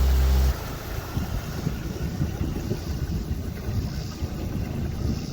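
A steady low engine hum cuts off abruptly about half a second in. It gives way to a quieter, uneven low rumble.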